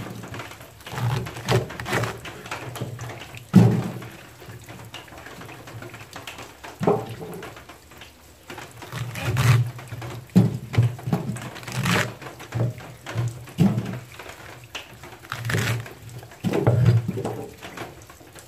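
Cleaver chopping taro stalks on a thick wooden chopping board: a run of knocks in uneven bursts, with short pauses between bunches.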